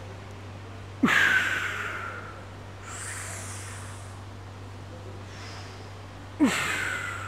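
A person breathing hard through slow, heavy reps: two sudden, loud exhales about five seconds apart, each falling in pitch and trailing off over about a second, with softer breaths between them.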